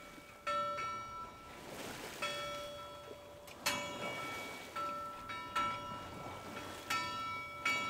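A navigation bell buoy's bell rung irregularly by its wave-driven clappers as the buoy rocks in the chop. There are about seven strikes at uneven intervals, each ringing on with a metallic tone.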